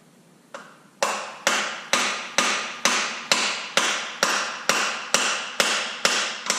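Hammer blows driving a new camshaft bearing into the bore of a Detroit Diesel 4-53T engine block: one light tap, then steady metallic strikes about two a second, each ringing briefly.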